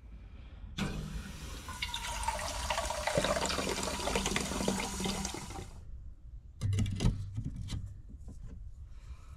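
Water from a tap running into a Jetboil cooking cup held over a galvanized metal basin, for about five seconds, then shut off. A few seconds later, a short cluster of knocks and clicks as the cup is handled.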